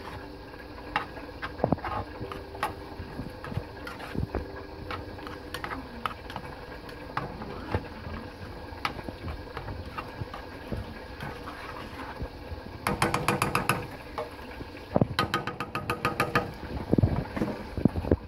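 A spoon stirring thick cheese dip in a skillet, scraping and clicking against the pan. Twice near the end come quick runs of rapid taps.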